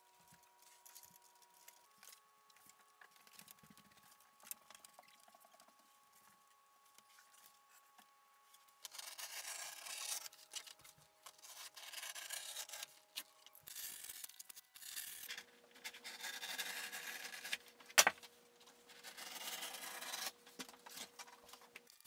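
Knife blade drawn through thick vegetable-tanned leather, cutting a belt strap: a run of scraping strokes, each a second or two long, starting about nine seconds in, with one sharp click near the end. Before the cutting there are only faint light scratches and ticks.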